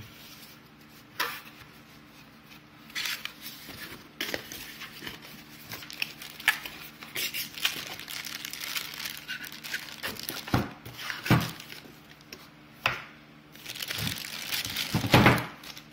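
Plastic bag crinkling and rustling, and a small cardboard box being opened by hand as a battery pack is taken out and unwrapped. Irregular crackles with a few knocks.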